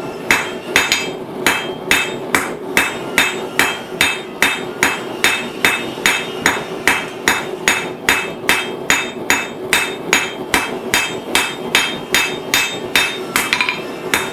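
Blacksmith's hammer striking hot steel on an anvil in a steady rhythm of about three blows a second, each blow ringing briefly, as the spoon stock is forged.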